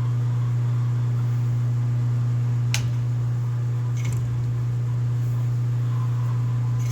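Steady low machine hum, with two sharp metallic clicks about a second apart near the middle as a hand crimper works a sleeve onto steel trellis cable.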